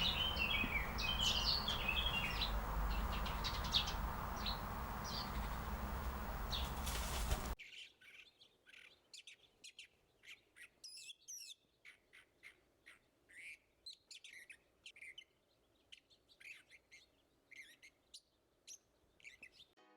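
Small birds chirping and trilling, at first over a loud, steady rumble of background noise. About seven and a half seconds in, the noise cuts off abruptly, leaving a different, cleaner recording of many quick chirps and short trills over a quiet background.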